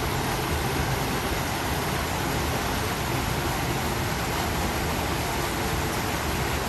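Steady rush of water pouring in at a river inflow, an even unbroken hiss with no changes.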